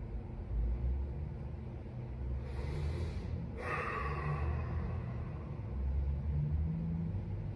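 A steady low rumble, with a breathy rush of noise lasting about two seconds near the middle, broken by a short gap.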